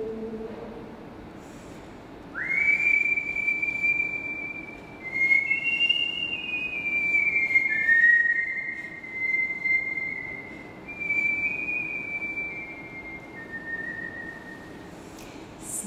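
A person whistling: a quick upward slide into a high held note about two seconds in, then a string of long, pure notes that drift slowly downward in small steps.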